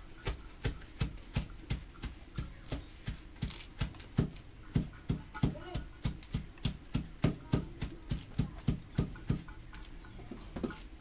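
Quick, fairly regular snapping clicks, about three a second, each with a dull thump, as small leaves are plucked and snapped off their stalks by hand.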